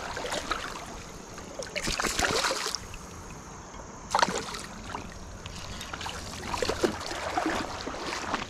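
Shallow creek water splashing in a few short bursts as a big brown trout is landed by hand, over the steady flow of the stream.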